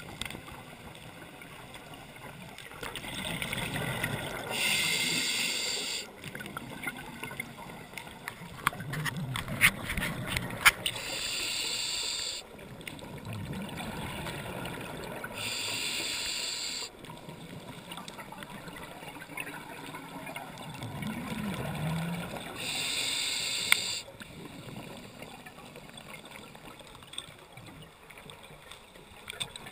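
Scuba regulator breathing underwater: four bursts of exhaled bubbles, each about a second and a half long and several seconds apart, with quieter inhalation between. A few sharp clicks come about ten seconds in.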